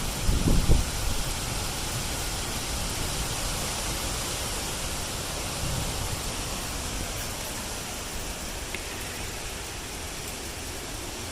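Hurricane wind gusts rushing steadily, with low buffeting on the microphone in the first second, easing slightly toward the end.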